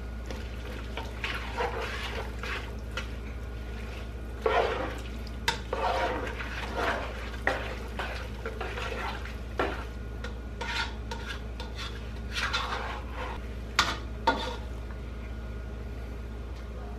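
A spatula stirring and scraping a diced vegetable mixture around a frying pan in irregular strokes, with a few sharper knocks of the spatula on the pan in the middle and near the end. A steady low hum runs underneath.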